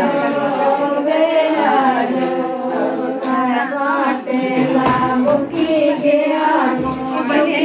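A group of women singing a song together, many voices overlapping.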